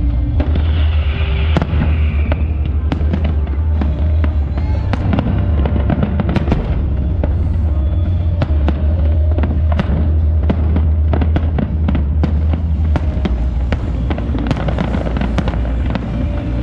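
Fireworks display: aerial shells bursting and crackling in a dense, unbroken string of bangs, several a second.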